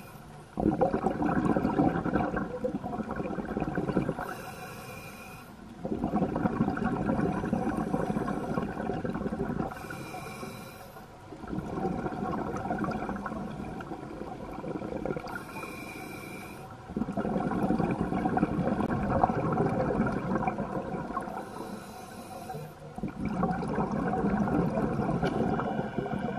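A scuba diver breathing through a regulator underwater: each breath is a short hissing inhale followed by a longer, louder rush of exhaled bubbles, in a regular cycle about every five to six seconds, five exhales in all.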